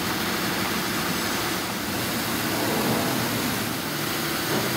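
Steady rushing air noise with a faint low hum from ventilation running.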